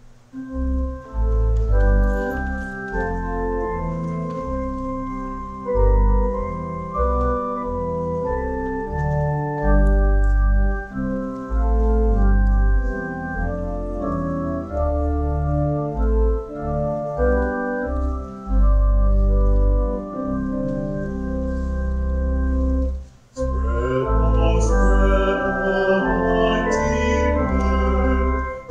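Church organ playing a slow hymn in held chords with deep bass notes. After a brief break about 23 seconds in, singing with vibrato joins the organ.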